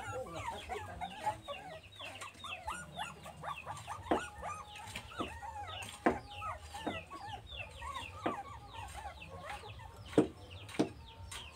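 Chickens clucking, with many short calls overlapping throughout. Several sharp knocks cut in, the loudest about ten seconds in.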